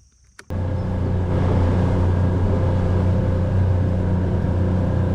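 A boat's outboard motor running steadily under way, with a strong low hum. It cuts in suddenly about half a second in, after faint insect chirping.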